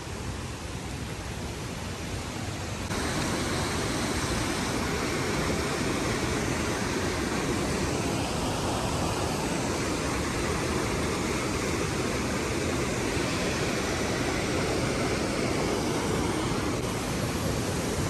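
Waterfall with a strong current, a steady rush of falling water that gets louder about three seconds in.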